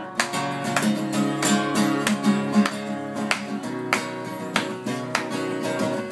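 Instrumental music from a live band, led by a strummed acoustic guitar, with sharp regular strokes keeping the beat and no singing.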